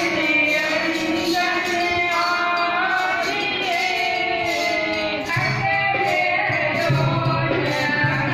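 Women's voices singing a Sikh shabad kirtan to harmonium accompaniment, with a steady low note coming in about five seconds in.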